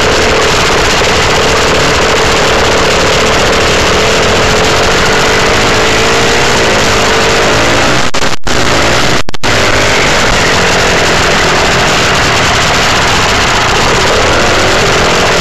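Dirt bike engine running under way, its pitch wavering and climbing a little around the middle, over a steady rush of noise. The sound cuts out twice for a split second shortly after the middle.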